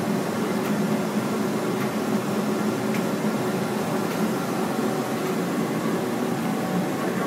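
Komori Lithrone LS 529+C five-colour sheetfed offset press with coater running: a steady, even mechanical noise with a low hum.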